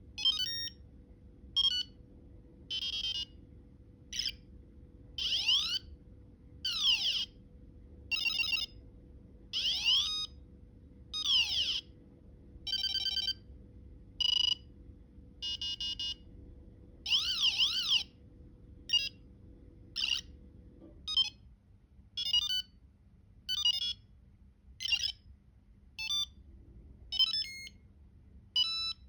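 Small electronic buzzer driven by an ESP32/Arduino board, playing one short sound effect after another, about one a second. The effects are high-pitched beeps, rapid trills, and tones sweeping up and down like a tiny siren.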